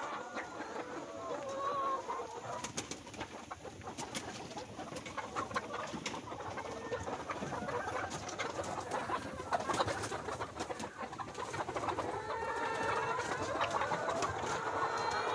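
A flock of caged brown laying hens giving a dense, overlapping chorus of wavering calls, a weird sound that the uploader took for hunger, with many sharp clicks and taps mixed in. The chorus grows louder near the end.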